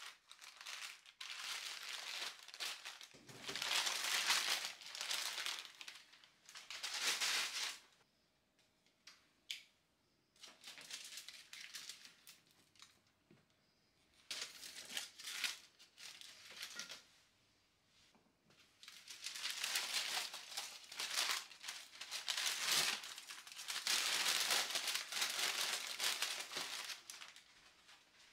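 Greasy parchment paper and then aluminium foil being rolled and crumpled up off a sheet pan, in repeated crinkling bursts, with a quiet stretch of several seconds midway.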